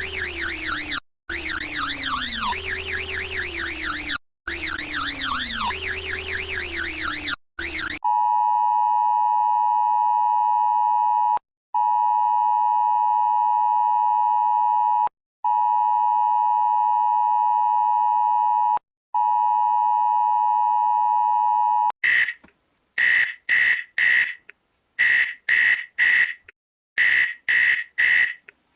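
Emergency Alert System-style alarm tones played one after another. First comes a fast-warbling, sweeping siren tone over a falling low tone, in bursts of about three seconds. About a third of the way in it changes to a steady high beep held in four long blasts of about three and a half seconds, and near the end to rapid short beeps in clusters of three or four.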